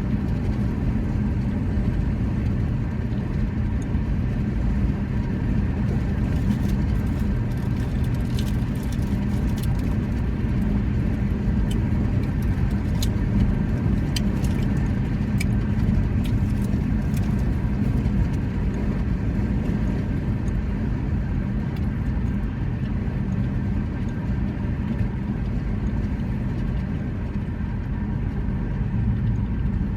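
Steady low mechanical rumble with a faint hum, much like a running vehicle, with a scatter of faint clicks around the middle.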